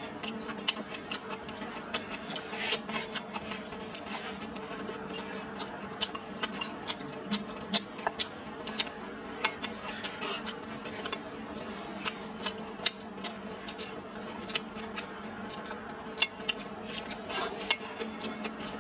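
Close-up eating sounds: chewing and lip smacks of a mouthful of rice and greens, many short irregular clicks over a steady low hum.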